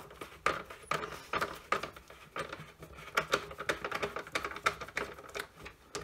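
Screwdriver working Torx screws out of a cordless hand vacuum's plastic housing: a run of small, irregular clicks and taps, several a second, as the bit turns and the plastic body is handled.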